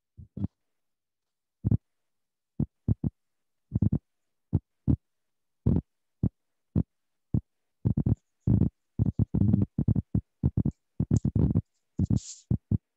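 Typing on a computer keyboard: separate keystrokes, sparse and uneven at first, coming in quicker runs from about eight seconds in.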